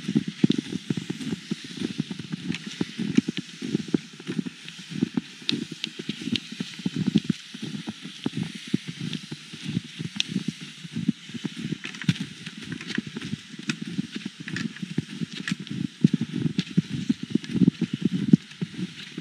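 Footsteps crunching through snow at a walking pace, soft thuds with a crisp crackle on each step.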